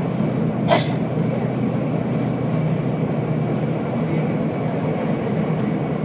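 Steady rumble and hum of a Shinkansen train running at speed, heard from inside the passenger cabin. About a second in, a brief sharp hiss stands out over it.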